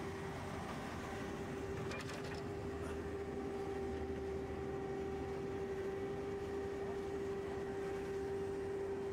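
Somero 22EZ laser screed running steadily as it strikes off fresh concrete: an even machine hum with a constant whine over a low rumble, and a few quick clicks about two seconds in.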